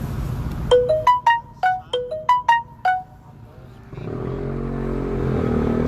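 A mobile phone ringtone: a short melody of about ten quick, bell-like notes, a phrase played twice, lasting about two seconds. From about four seconds in, a vehicle engine is heard.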